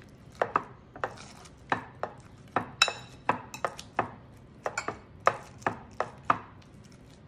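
A metal fork mashing avocado in a bowl: irregular clicks and taps of the tines against the bowl, about two or three a second.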